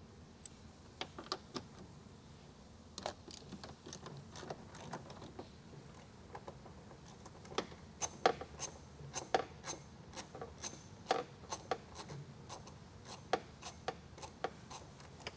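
Socket ratchet clicking as 10 mm mirror-mounting bolts are loosened with a long extension. The sharp clicks are sparse at first and come more often and louder from about halfway through.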